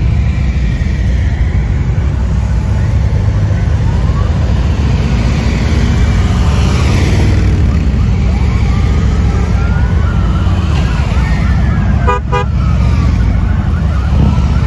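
A procession of touring motorcycles and trikes passing slowly at close range, their engines running in a continuous low drone that rises and falls in pitch as each one goes by. A short horn beep sounds near the end.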